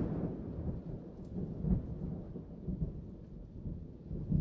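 Thunder from an approaching storm rumbling low and uneven, slowly dying away.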